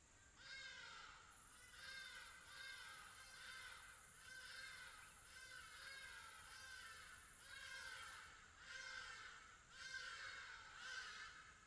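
Faint tropical afternoon ambience: a series of falling animal calls repeating about once a second, over a steady high-pitched insect whine that stops a little after two-thirds of the way through.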